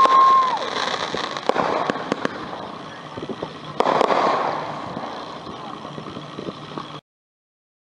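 Two 200-gram, 16-shot consumer firework cakes firing: a dense run of cracks and pops from the aerial shells, with one strong burst about four seconds in that fades into scattered crackle. At the start a steady whistling tone sounds for about a second, at the loudest point. The sound cuts off abruptly near the end.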